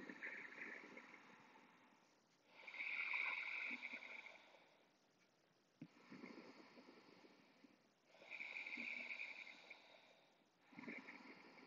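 Faint, slow breathing at rest, each breath swelling and fading. A hissy inhale alternates with a softer, lower exhale, about one full breath every five to six seconds.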